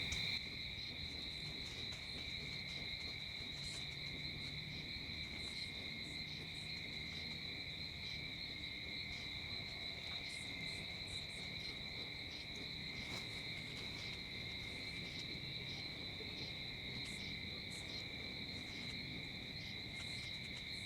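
Evening chorus of crickets: a steady, unbroken high trill with a few faint ticks above it.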